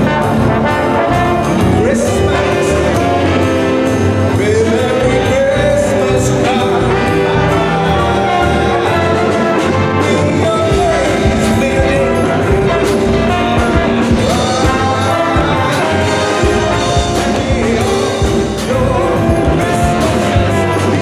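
Live big band playing jazz: a saxophone section, trombones and trumpets, with a male singer at the microphone, amplified through PA speakers.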